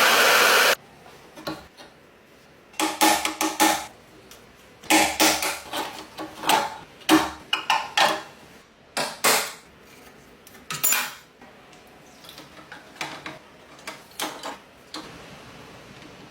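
A loud steady machine noise cuts off suddenly under a second in. It is followed by a string of sharp metallic clinks and knocks, some ringing briefly, as metal pieces are handled and set down.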